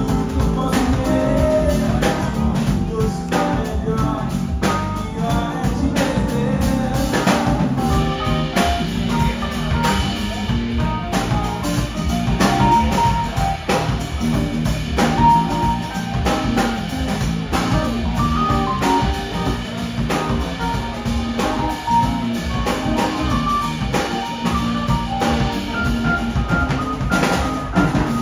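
Live rock band playing: electric guitar and electric bass over a drum kit with a steady beat.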